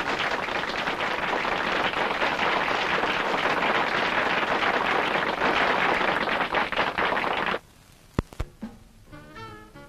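Audience applauding, a dense steady clapping that cuts off suddenly about seven and a half seconds in. A couple of light clicks follow, then music begins near the end.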